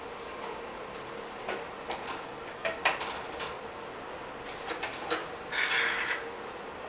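Small metal clicks and knocks as a circuit board is fitted into the board supports and clamps of a BGA rework station, with a short scraping rustle near the end. A faint steady hum runs underneath.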